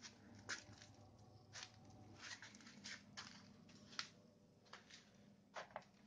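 Near silence with a steady low hum, broken by about ten faint, scattered clicks and taps, two of them close together near the end.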